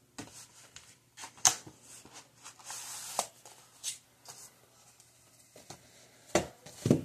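Handling noise: irregular rustling, light clicks and knocks as items are handled close to the phone microphone, with two louder thumps near the end. A faint steady hum runs underneath.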